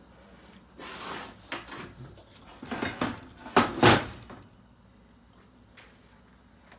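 Metal clattering and knocking, like hard metal parts or tools being handled and set down. There are several quick knocks over about three seconds, and the loudest two come close together near the end of the burst.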